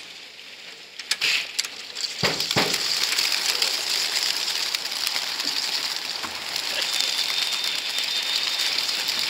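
A big flock of racing pigeons is released together from a transport truck's crates. There are a few sharp knocks about two seconds in. Then a loud, dense whirr of hundreds of wingbeats takes over, sounding like heavy rain.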